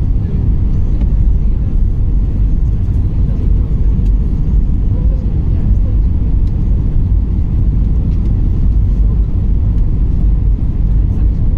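Steady low roar inside the cabin of an Airbus A320-200 on approach: engine and airflow noise heard through the fuselage.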